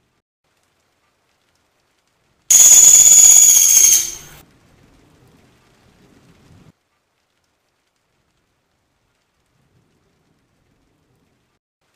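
Pelatuk sampit, a small woodpecker, giving one harsh, rattling trill about a second and a half long, a few seconds in; otherwise silence.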